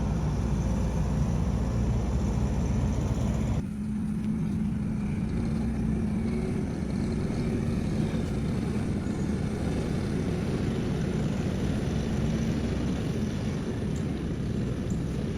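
Skid steer engine running steadily with a low rumble. The sound changes abruptly about three and a half seconds in.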